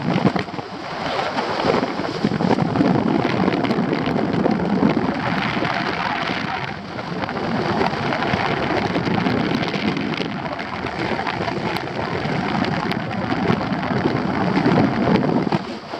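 Airflow rushing over the microphone in paraglider flight: a steady, rough wind noise that swells and eases a little.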